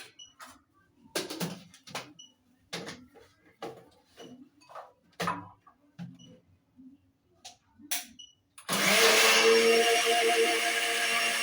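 Scattered knocks and clicks of a blender jar being loaded and handled. Then, near the end, a kitchen blender motor starts suddenly and runs steadily, blending steamed green pumpkin leaves with very little water into a thick paste.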